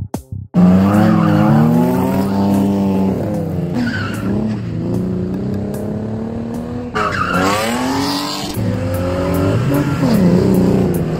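Drift car's engine revving hard and repeatedly rising and falling in pitch, with tyres squealing as the car slides; the revs climb sharply about seven seconds in. A beat of electronic music cuts off in the first half-second.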